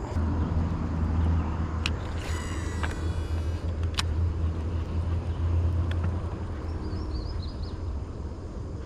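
A low, steady motor hum that eases off after about six seconds. A short high whirring about two seconds in, with a sharp click just before and just after it.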